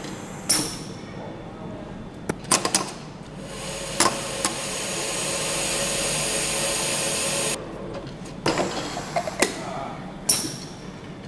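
Automated multi-spindle assembly station working on a V8 cylinder head: sharp metallic clicks and clanks, scattered and in short clusters, with a steady hiss lasting about four seconds in the middle that cuts off suddenly.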